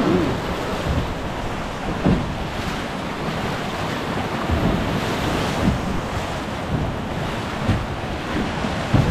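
Rushing river water and wind buffeting the microphone, with a handful of brief thumps.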